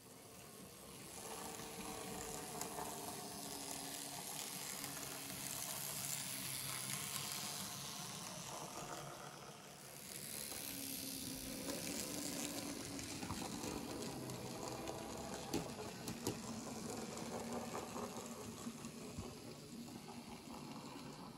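009 narrow-gauge model steam locomotive running along the track: a steady hiss with a whirring, whining mechanism underneath, getting louder as it comes close, dipping about halfway through, then rising again.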